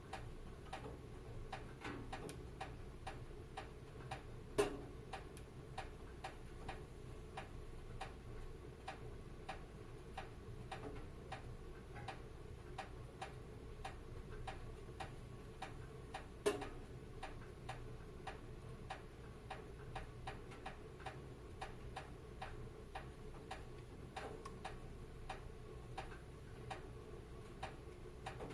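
Wood fire crackling steadily in a fireplace, a quick run of small crackles with two louder pops, about four and a half seconds in and again around sixteen seconds in.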